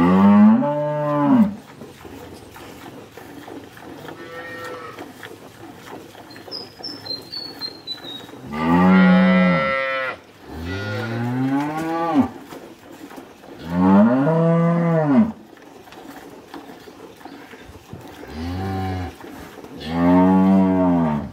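Dairy cows mooing again and again: about six long moos, each rising and then falling in pitch, a few seconds apart, with one shorter moo near the end.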